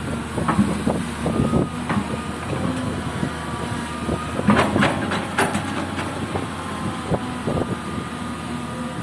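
Diesel engine of an excavator running steadily, with irregular metallic clanks and knocks that come in a cluster about halfway through.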